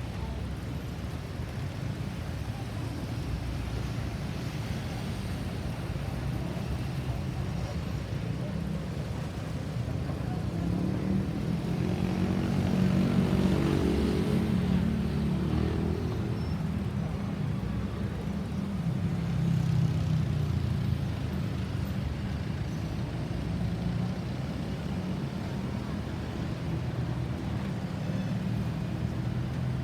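Road traffic running steadily, with a vehicle passing close and louder between about eleven and sixteen seconds in, and another smaller swell a few seconds later.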